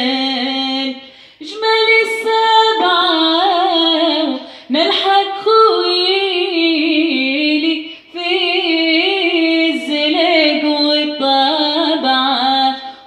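A woman singing a Tunisian folk song unaccompanied into a handheld microphone: long, ornamented phrases with sliding pitch, broken by short pauses every three to four seconds.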